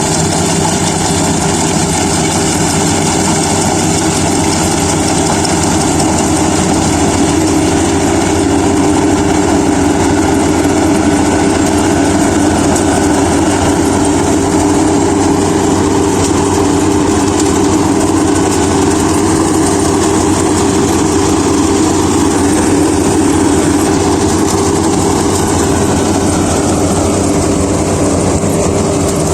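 Kubota DC-35 rice combine harvester running steadily, its engine giving a constant hum over a high-pitched machine whir. A higher whine drops in pitch near the end.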